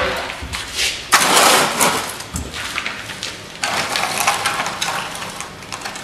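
Rustling and handling noise, with a few light knocks, as a hollow interior door is swung open and worked at by hand; the loudest rustle comes about a second in, with more from about halfway through.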